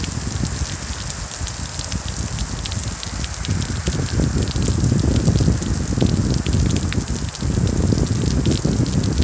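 Heavy rain and hail pelting down, a dense patter of sharp hits over a steady hiss, with a low rushing rumble that swells about three and a half seconds in.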